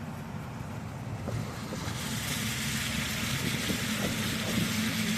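Car on the move: a low steady engine hum under a hiss of wind and tyre noise that grows louder about two seconds in.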